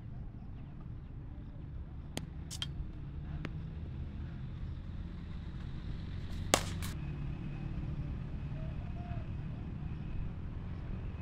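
A few sharp knocks of a cricket ball during net practice, the loudest about six and a half seconds in, over a steady low rumble of distant traffic.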